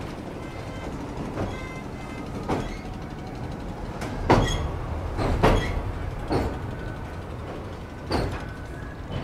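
Passenger train rolling over a steel railway bridge, heard from an open coach doorway: a steady low rumble of wheels on rails with about six irregular clanks as the wheels cross rail joints, loudest in the middle.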